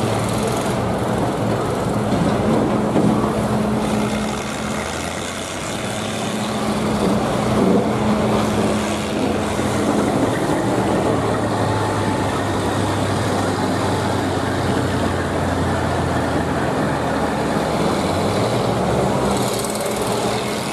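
Combine harvester engines running in a steady drone, the engine note shifting several times as the machines manoeuvre.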